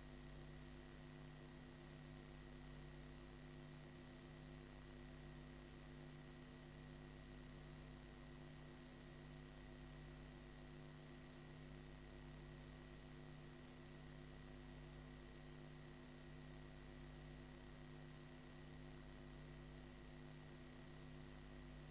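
Near silence: a steady low electrical hum and faint hiss from the playback of a blank stretch of videotape.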